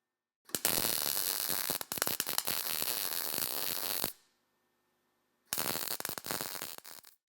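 Arc welding a patch into a snowmobile tunnel's thin sheet steel in two runs: a crackling run of about three and a half seconds, a pause, then a shorter run of about a second and a half.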